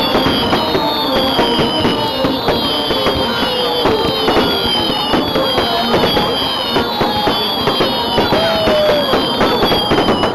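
Firework display: dense crackling and popping with many overlapping high whistles that bend in pitch, one after another roughly every second.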